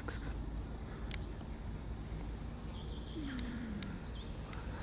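Quiet outdoor ambience: a steady low background rumble with a few faint clicks, and a short, faint falling sound about three seconds in.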